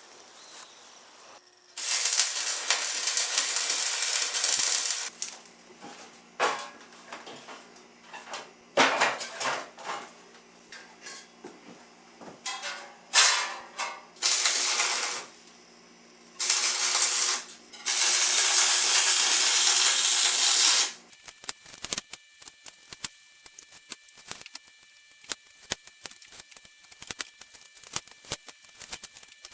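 Duct tape pulled off the roll in several long, crackling rips, with shorter pulls and handling clicks between; near the end a run of quick ticks.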